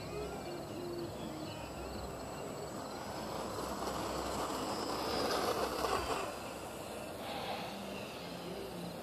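Electric RC foam plane's motor and propeller running, swelling louder about halfway through and easing off after, against a background of birds chirping at dawn.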